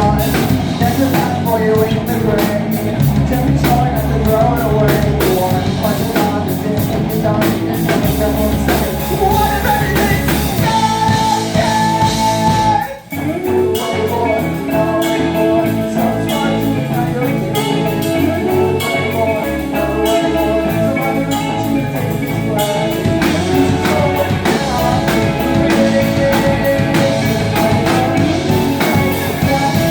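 A band playing a rock song with guitar, drum kit and singing, with a short break about thirteen seconds in before the full band comes back in.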